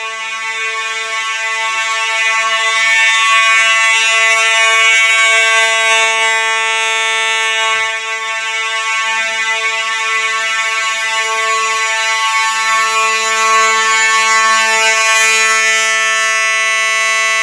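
Simplex fire alarm horn sounding one continuous, unbroken buzzing tone, set off from a manual pull station. It is loud and steady throughout, with no pulsing or coded pattern.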